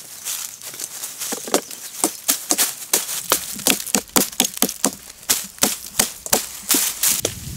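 A blade chopping wood with quick, regular strokes, about three a second, starting about a second in.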